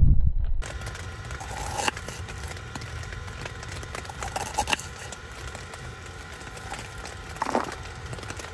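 Kitchen knife slicing a red onion on a wooden chopping board: crackly cutting sounds with a few sharp knocks of the blade on the board. A low storm rumble at the very start cuts off under a second in.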